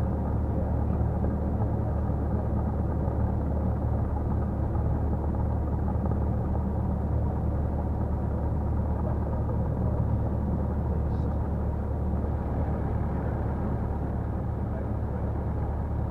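Cessna 172's piston engine and propeller running steadily as the aircraft rolls along the runway, a continuous low hum that eases slightly in level about two-thirds of the way through.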